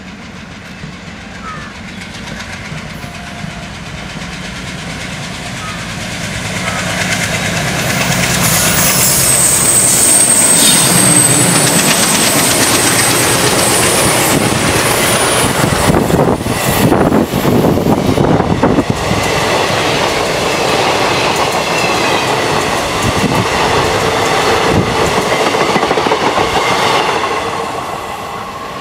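WDM3A ALCO diesel locomotive approaching with its engine running, growing louder as it nears, then the passenger coaches rolling past with a dense clickety-clack of wheels over the rail joints. The sound falls away near the end.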